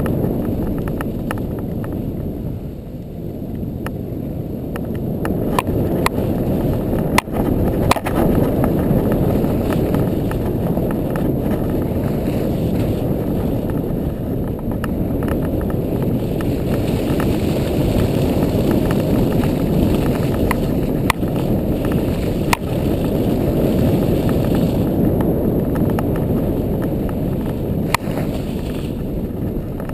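ATV engine running and the machine driving through deep snow, a steady low rumble picked up by a camera mounted on the vehicle, with a few sharp knocks as it jolts.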